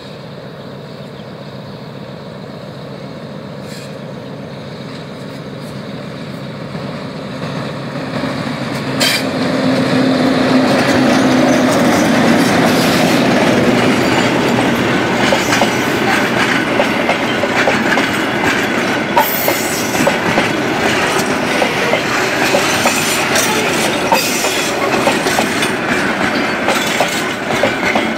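Diesel locomotive approaching and passing close, its engine hum growing louder and peaking about ten seconds in. Passenger coaches and a goods van follow, rolling by with wheels clattering and clicking over the rail joints.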